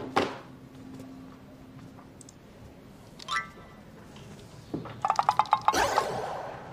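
Sparse comic sound effects laid over the drama: a falling swoosh at the start, a short bright chime a little past three seconds in, then a quick run of pitched blips with a swoosh about five seconds in.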